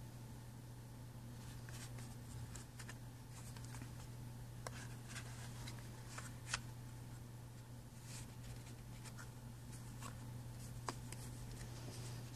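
Playing cards and their cardboard box being handled: faint rustling and flicking of the cards with a few sharp clicks, over a steady low hum.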